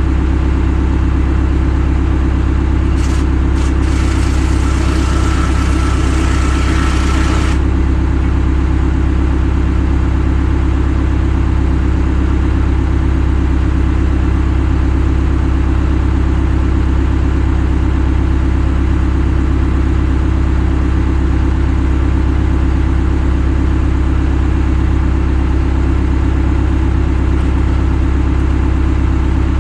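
An engine running steadily at a constant low drone. About three seconds in, a burst of hissing with a few clicks starts; it lasts roughly four seconds and cuts off suddenly.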